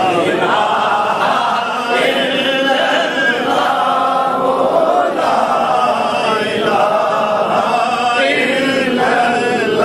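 Many voices chanting together in unison, a congregation singing along with a devotional naat refrain.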